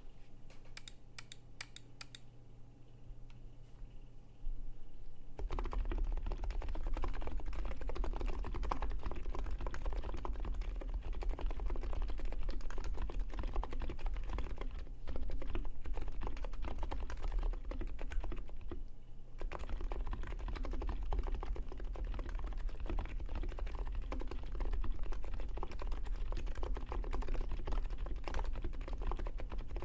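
Typing on a NiZ X87 electro-capacitive keyboard with KAT Alpha keycaps, its stem sliders lubed with thin Krytox 105 oil: a soft thock. A few separate keystrokes come first, then steady fast typing from about five seconds in, with a short pause about two-thirds of the way through.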